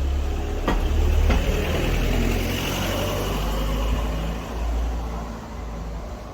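A motor vehicle passing close by, its hiss swelling and fading over a few seconds over a steady low rumble, with two sharp knocks about a second in.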